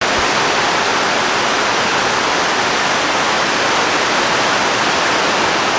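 Rain falling steadily, a loud even hiss with no breaks.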